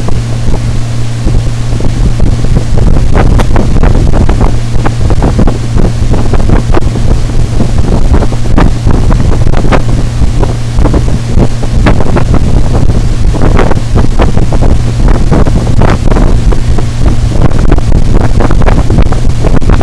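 50 HP Mercury CommandThrust outboard running steadily under way, with wind rushing over the microphone and many short slaps of water against the hull from about three seconds in.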